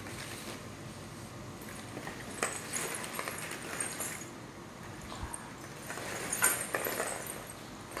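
Hollow plastic ball-pit balls clattering and rustling against each other in irregular bursts as a toddler shifts and rolls among them.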